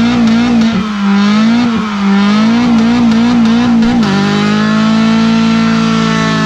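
Acura TSX's four-cylinder engine held at high revs during a burnout, its pitch wavering up and down about once a second, then holding steady a little after halfway, with the front tires spinning and squealing on the asphalt.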